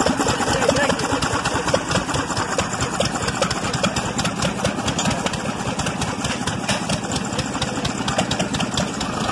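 1934 Witte stationary engine running, with a quick, continuous string of firing pops from its exhaust.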